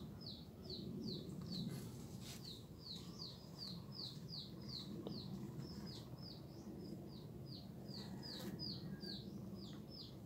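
A bird chirping steadily: one short falling note repeated about three to four times a second, faint, over a low background rumble.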